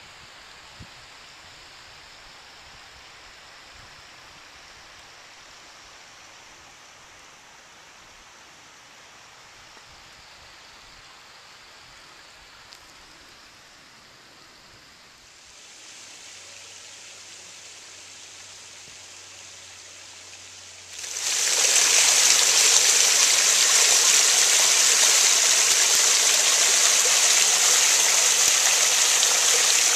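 Faint, steady rush of a creek, then about two-thirds of the way in a sudden jump to the loud, steady splashing of water pouring over a low rock ledge in a small creek waterfall, heard close up.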